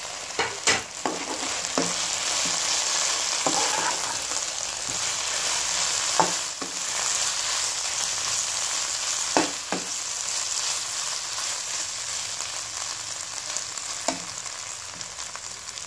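Shredded chicken, carrot and capsicum sizzling in hot oil in a non-stick wok while a slotted spatula stirs and tosses them. The steady sizzle is broken by a handful of sharp knocks and scrapes of the spatula against the pan.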